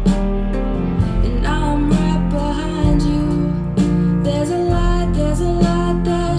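A slow, tender song played back over Avalon Acoustics loudspeakers, with plucked notes over a held bass and no words sung.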